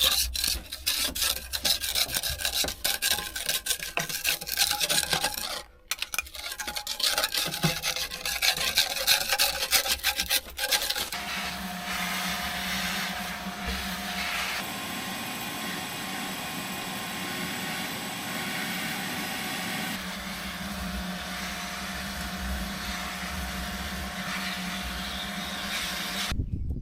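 Hand scraper rasping in quick repeated strokes, scraping caked dirt and grime off the excavator cab floor under the seat. After about eleven seconds the scraping gives way to a steady motor hum with a hiss, which cuts off just before the end.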